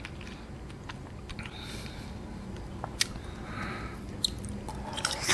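Faint, wet mouth sounds of eating agar-agar jelly set in a juice carton: scattered small clicks and soft squishes, with a bite into the jelly near the end.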